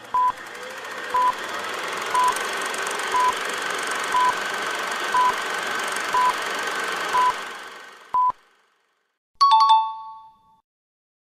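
Quiz countdown timer beeping once a second, nine short electronic beeps over a steady rushing background sound that fades out after the last beep. About a second later a single bright chime sounds and dies away, marking the answer reveal.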